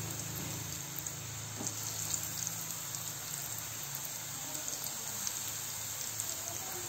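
Breaded sweet potato balls deep-frying in hot oil in a wok: a steady sizzle with faint scattered crackles.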